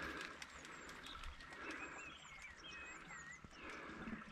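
Faint bird calls: several short chirps that sweep up and down in pitch, clustered in the middle, with a few light clicks in the first second.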